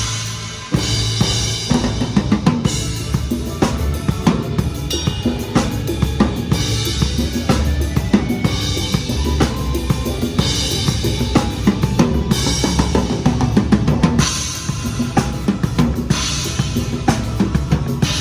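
Pearl Reference drum kit (22-inch bass drum, 14-inch snare) played to a song, with bass drum, snare and cymbals driving a steady groove under a low bass line. The full kit comes back in under a second in after a brief drop. Bright cymbal crashes recur every few seconds.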